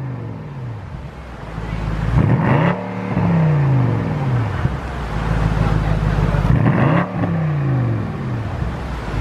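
Performance car engine and exhaust revved hard twice, about four seconds apart, the pitch climbing sharply each time and then falling away, with the engine running steadily in between.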